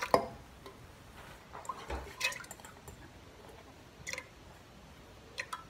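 Faint, scattered taps and small watery sounds from a pressure cooker holding water and freshly added chana dal, as a bowl is brought to its rim: a short sound at the start, then soft clicks about two seconds in, four seconds in and near the end.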